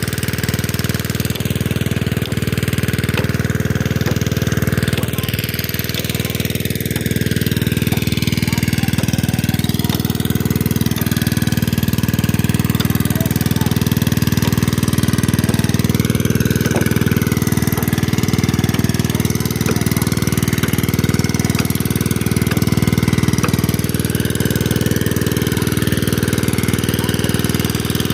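Petrol engine running steadily at a constant, even speed.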